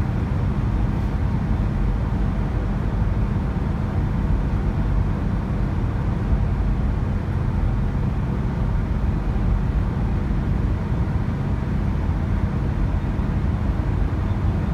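Steady road and engine noise heard inside a car's cabin at highway speed, a low, even rumble with no distinct events.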